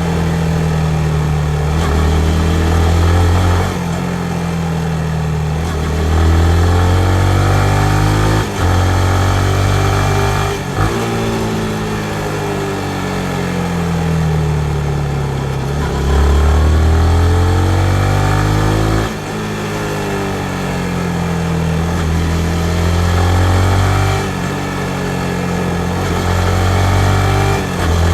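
Yamaha MT-15's single-cylinder engine under way: engine pitch rises as it pulls, then drops sharply several times, as with gear changes, and falls away in stretches of easing off.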